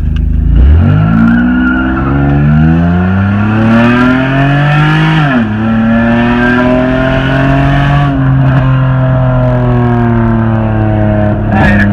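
Honda's engine accelerating hard through the open Quick Time Performance exhaust cutout, so the exhaust is loud and unmuffled. The pitch climbs steeply from low revs, with a sharp drop at an upshift about five seconds in and another about eight seconds in.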